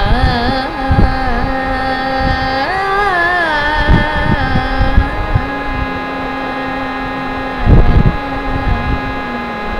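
A woman singing a Carnatic improvisation in raga Behag, holding long notes and sliding between them in ornamented turns, over a steady drone. There is low rumbling noise underneath and a brief loud thump about eight seconds in.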